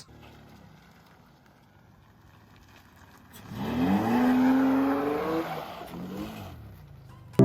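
Toyota Tacoma pickup's engine, quiet at first, then revving hard about halfway through, its pitch rising and holding before it drops back down near the end.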